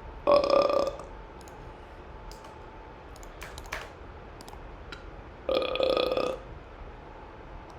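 A person burping twice, once just after the start and again about five and a half seconds in, each burp under a second long, with a few faint clicks in between.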